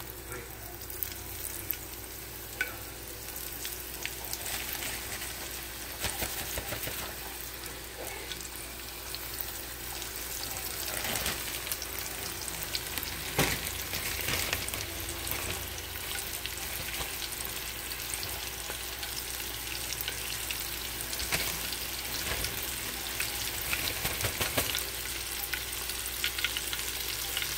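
Flour-dredged chicken wings deep-frying in hot oil in a cast-iron skillet: a steady crackling sizzle with scattered sharp pops. The sizzle builds slightly as more wings are lowered into the oil.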